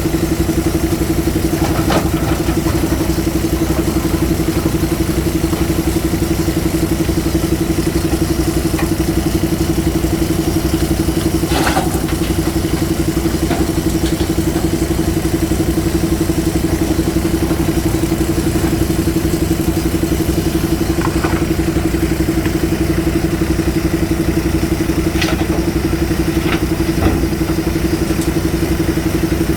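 JCB 3DX Super backhoe loader's diesel engine running steadily at an even pitch, with a few faint clicks and knocks now and then, the clearest about twelve seconds in.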